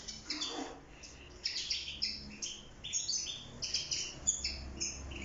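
Several European goldfinches twittering in an aviary, with many short, high chirps overlapping without a break.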